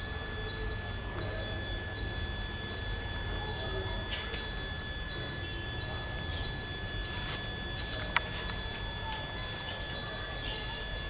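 Garden ambience: a short, high chirp repeating nearly three times a second over several steady high-pitched whines and a low rumble, with a single sharp click about eight seconds in.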